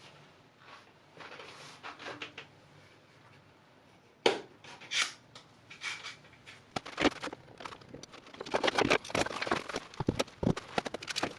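Handling noise from parts and tools being worked by hand: irregular clicks, taps and short scrapes. A sharp click comes about four seconds in, and the clicks and scrapes grow dense and rapid in the second half.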